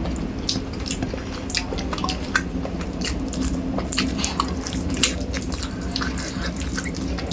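Wet eating sounds: a person chewing a mouthful of rice and fish curry, with irregular moist clicks and smacks of the mouth. A steady low hum runs underneath.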